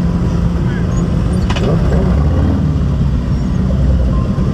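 Motorcycle engines running with a steady low rumble, with a single sharp click about a second and a half in.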